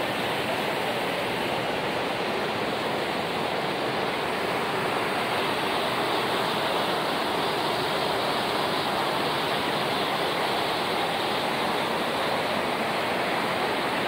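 Steady rush of white water over a rocky stream's rapids and small waterfalls.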